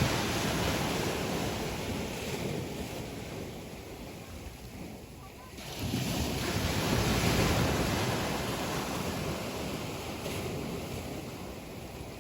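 Sea waves breaking and washing on the shore in two surges: the first ebbing over the opening seconds, the second rushing in suddenly about six seconds in and then slowly fading.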